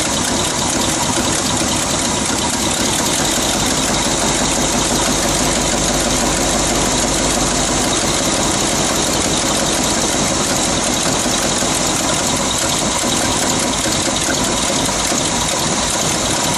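Chevy 350 V8 of a 1969 GMC truck idling steadily on its freshly rebuilt carburetor.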